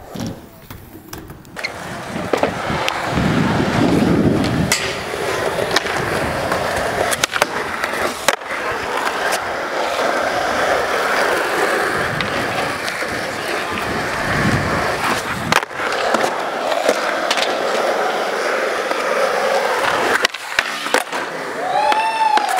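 Skateboard wheels rolling over smooth concrete, a steady loud rolling noise broken by several sharp clacks of the board.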